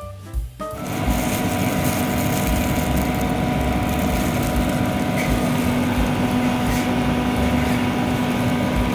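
Background music cuts out under a second in, giving way to a steady mechanical drone: a motor or engine running evenly, a constant hum under a noisy hiss.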